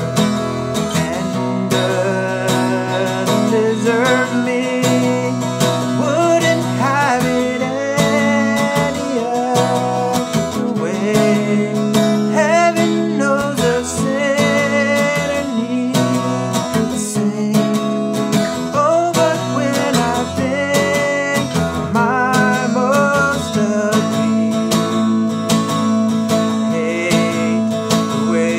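Acoustic guitar strummed continuously, with a man's voice singing over it.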